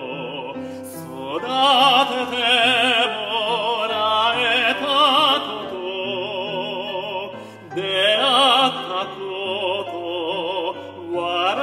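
A male operatic voice sings with a wide vibrato over an instrumental accompaniment. New phrases swell up about a second and a half in and again about seven and a half seconds in.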